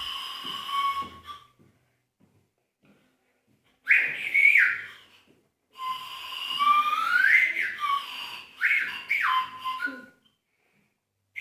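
Whistling in three spells with short silences between. The tone is mostly steady, with repeated upward slides in pitch that break off, most of them in the longer last spell.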